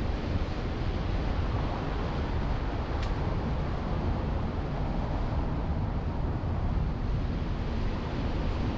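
Steady road and wind noise of a car driving, picked up by a GoPro onboard camera, with a faint tick about three seconds in.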